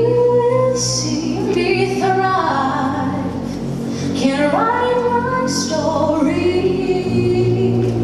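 Two female vocalists singing into microphones, holding long notes that step from pitch to pitch over a steady low accompaniment.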